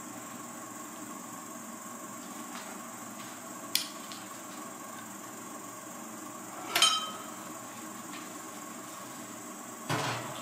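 Three sharp clinks and knocks of kitchenware against a glass baking dish, the loudest, about two-thirds of the way in, with a brief ringing tone. A steady hiss runs underneath.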